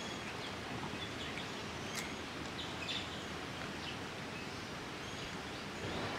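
Outdoor background with small birds giving short, scattered chirps over a steady hiss of ambient noise, and a single sharp click about two seconds in.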